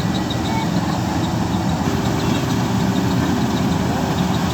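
Metal-FM World full-feed combine harvester's engine running steadily, with a steady hum that comes in about two seconds in.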